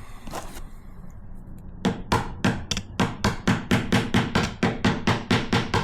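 Rapid, even clicking knocks, about five a second, starting about two seconds in, as a tool tightens a locking nut on the all-thread hinge pin of a plastic tool box.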